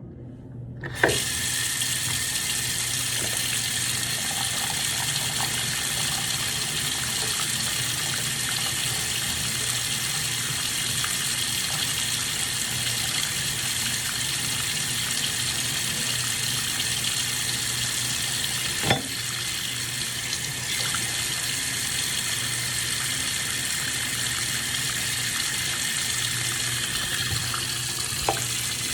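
Water running steadily from a sink tap, starting with a click about a second in. Sharp knocks come about two-thirds of the way through and again near the end.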